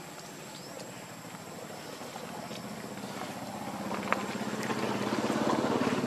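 An engine running steadily and growing louder through the second half, with a single sharp click about four seconds in.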